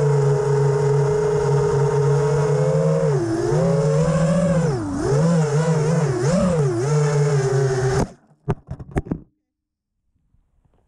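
FPV quadcopter's brushless motors whining, the pitch dipping and rising several times with throttle changes. About eight seconds in the motor sound cuts off abruptly, followed by a few short clicks.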